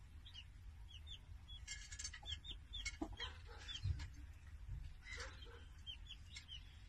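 Newly hatched chick peeping faintly: a steady string of short, high cheeps, often in quick pairs.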